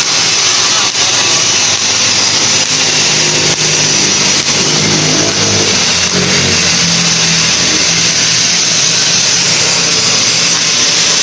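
An engine running under a loud, steady hiss, its revs rising and falling for a few seconds in the middle.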